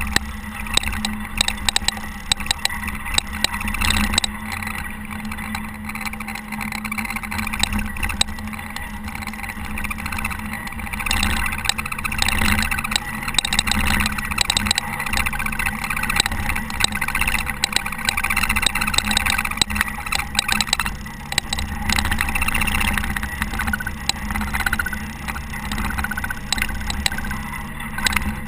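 Diesel engine of a Caterpillar TH330B telehandler running steadily while it plows snow, with frequent rattles and knocks over the engine.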